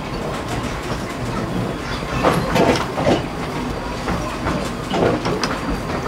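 Miniature steam train running along its track, heard from aboard: a steady rolling rumble with wheels clicking over the rail joints, and a few louder clanks about two and five seconds in.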